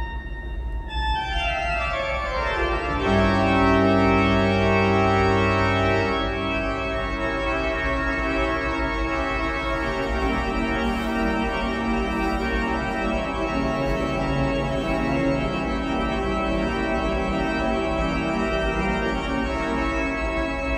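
Church organ played solo: a fast run sweeping down from high to low over the first few seconds lands on a loud held chord with a deep pedal bass note, after which the playing goes on in sustained chords and moving lines.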